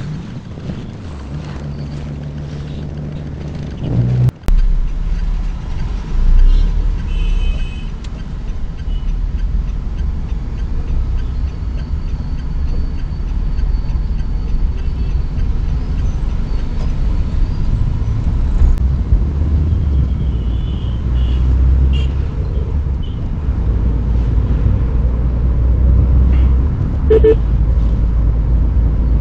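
Tata Nexon's engine and road noise heard from inside the cabin, a low rumble that steps up sharply about four seconds in as the car gets moving and then stays steady. A few short horn beeps from surrounding traffic sound over it.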